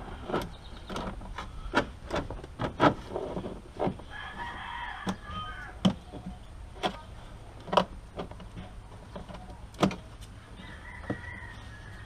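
Sharp plastic clicks and knocks at irregular intervals as an aFe cold air intake's filter and plastic housing are pushed and fitted into place by hand.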